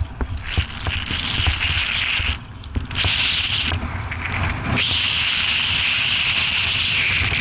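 Climbing movement on granite: sharp clicks and scrapes in the first couple of seconds, fitting hands scuffing rock and trad gear clinking on the harness, over low wind rumble on the microphone. A steady high hiss cuts out twice and then holds on.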